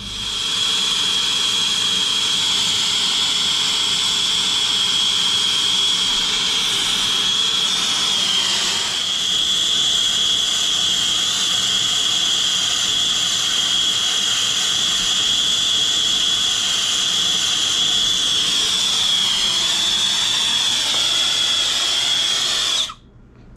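Air-acetylene brazing torch burning: a loud, steady rushing hiss with a high whistling tone in it. The flame is heating a refrigeration filter drier's brazed copper joints to unsweat them. It cuts off suddenly near the end as the torch is shut off.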